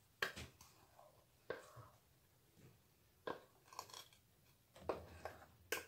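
Faint, scattered soft clicks and plops of thick chocolate cake batter being poured from a bowl into a round aluminium cake pan.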